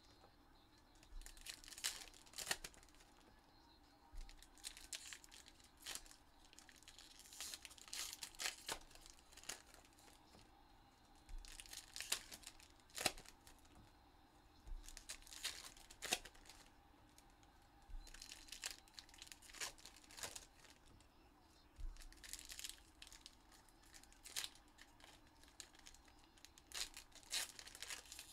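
Foil trading-card pack wrappers being torn open and crinkled by hand, with cards handled between them: quiet, irregular short rips and crackles throughout.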